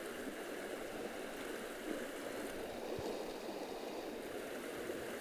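Steady rush of a shallow creek flowing over a gravel riffle.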